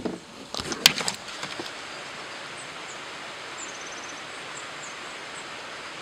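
A few sharp knocks and clicks in the first second and a half, then a steady outdoor hiss with a small bird's high chirps and a short trill in the middle.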